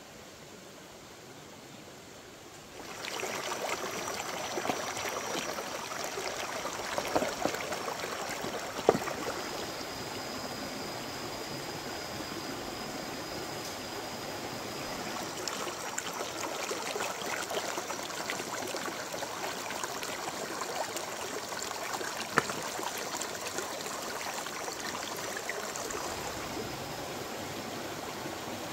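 Shallow rocky stream running over stones: a steady rush of water that comes in about three seconds in, with a few sharp knocks.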